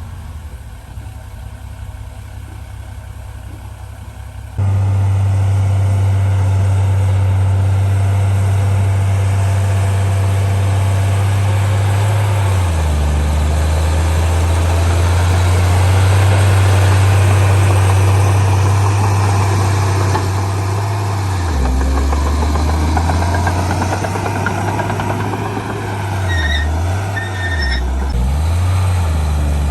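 Heavy diesel engine of earthmoving machinery running, jumping abruptly louder about four seconds in, then shifting pitch several times. A few short high beeps near the end.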